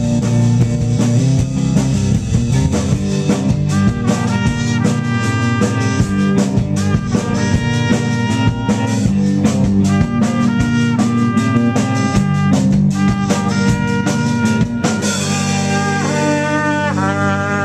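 Live rock band playing, a trumpet lead over a drum kit. About 15 seconds in the drums stop and held notes ring on.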